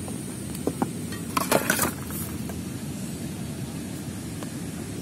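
Clicks and clatter of a portable butane camping stove and its gas canister being handled and set down on a cardboard box: a few light clicks about a second in, then a louder burst of knocks around a second and a half in, over a steady rush of flowing river water.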